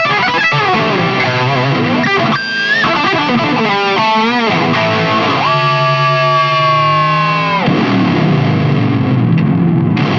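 Fernandes Revolver electric guitar played with heavy distortion: quick runs, a bent note about two and a half seconds in, and a warbling vibrato passage around four seconds. Then comes a long held note of about two seconds that sags in pitch as it ends, followed by more fast playing.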